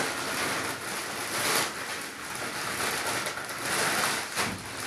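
Crinkly rustling of a bag of potatoes being handled while food is packed, an uneven crackle with no pause.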